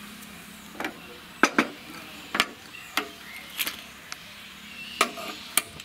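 Metal cooking utensils being handled: a spoon and steel and iron vessels knock and clink about eight times, each a short sharp clink.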